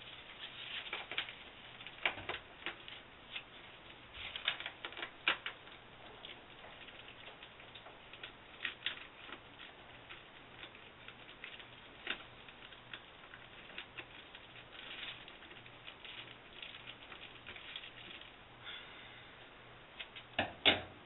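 Foil radiant barrier being cut with an X-Acto knife and handled around the water heater's access hole: irregular light clicks, crinkles and short rustles, with a cluster of louder clicks near the end.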